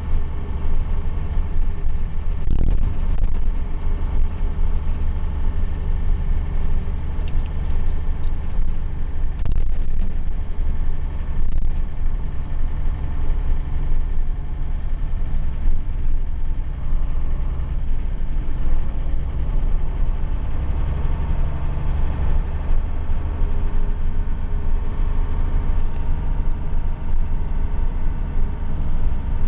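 Mercedes-Benz Unimog 1300 L's six-cylinder diesel engine running steadily under way, heard from inside the cab as a constant low rumble. A couple of short knocks stand out, one early on and one about a third of the way in.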